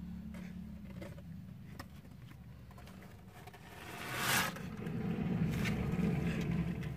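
Kitten hissing: one short, breathy hiss about four seconds in, over a low steady rumble and faint scratching of kittens moving on newspaper.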